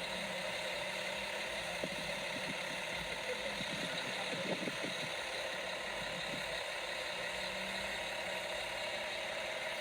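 Steady hum of a vehicle engine running at idle, with a few faint clicks and small sounds over it around the middle.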